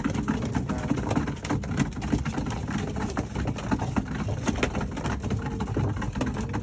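Racing pigeons cooing in the loft over a dense patter of small clicks as they peck at freshly served feed.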